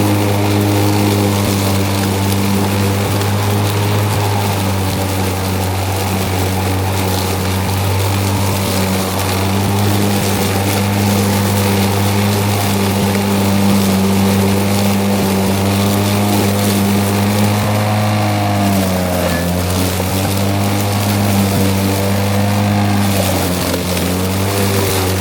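EGO Select Cut battery lawn mower's electric motor and high-lift blade running steadily while cutting thick, waist-high grass. The pitch sags and recovers twice, about three-quarters of the way through and again near the end, as the blade slows under the load of the heavy grass.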